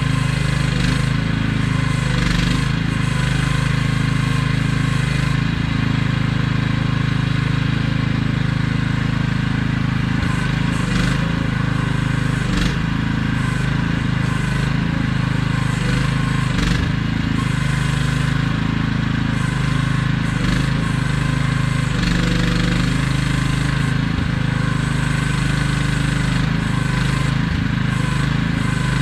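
AGT QH12R mini excavator's small engine running steadily while the machine is worked, with a few sharp clanks from the machine along the way.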